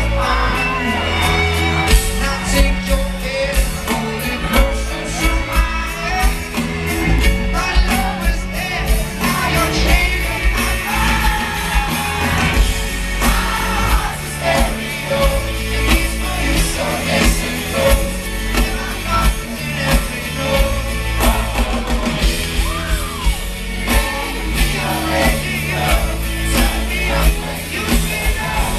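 Live pop-rock concert: a male lead vocalist singing through the PA over an amplified band with electric guitar and a steady, heavy beat, recorded from within the crowd.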